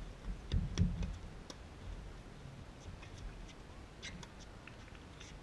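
Faint scattered clicks and light knocks of tennis play on hard courts, such as balls bouncing and being struck, with a couple of low thumps about half a second in.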